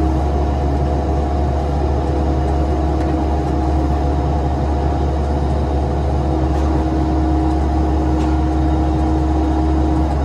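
Bobcat 337 compact excavator's diesel engine running steadily, heard close up from the operator's seat, with a steady whine over the engine hum.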